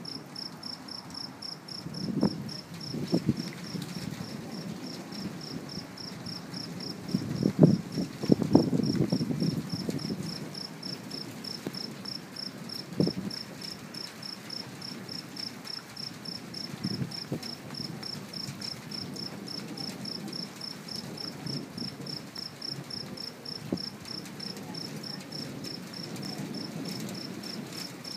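Thunder rumbling in low peals, the loudest about seven to ten seconds in, with smaller rolls before and after. Behind it, crickets chirp steadily in an even, unbroken pulse.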